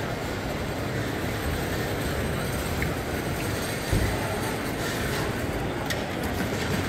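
Steady hubbub of a crowded exhibition hall: distant indistinct chatter over a low, even rumble, with a brief low thump about four seconds in.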